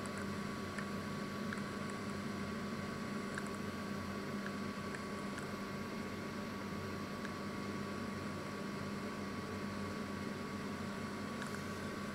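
Panasonic microwave oven running mid-cycle: a steady hum with a thin, constant higher whine and a few faint scattered ticks.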